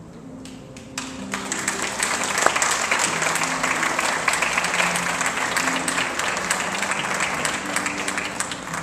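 Audience applauding, the clapping swelling in about a second in and holding loud, with guitar music playing underneath.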